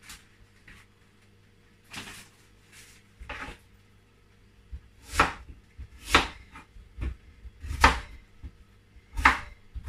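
Kitchen knife chopping peeled yam on a wooden chopping board: about ten separate, irregular knocks of the blade through the yam onto the board, louder in the second half.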